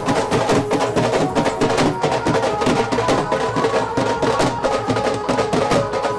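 Rajasthani folk music: dhol drums beaten in a fast, driving rhythm under a melody of long held notes.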